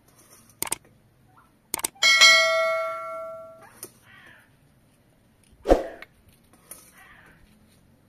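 Two sharp clicks followed by a bright bell ding that rings out and fades over about a second and a half: the sound effect of a subscribe-button and notification-bell animation. A single thump comes a few seconds later.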